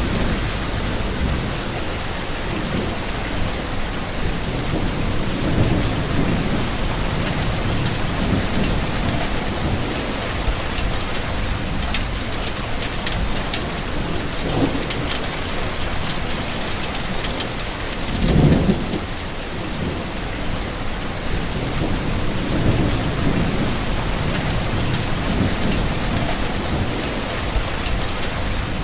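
Steady, dense rainfall, with low rumbles swelling up now and then; the loudest rumble comes about two-thirds of the way through.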